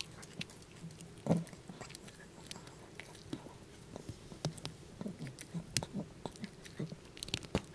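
Dog chewing a duck neck bone treat close to the microphone: irregular crunching and cracking of bone between its teeth, with one louder crunch about a second in.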